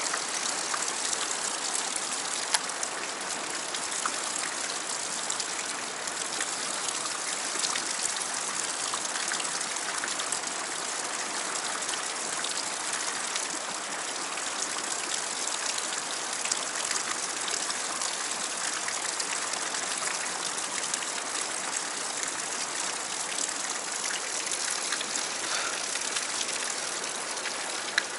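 Fast river current rushing and churning through a narrow rock channel, a steady even rush of water. A couple of brief sharp clicks stand out from it, one early and one near the end.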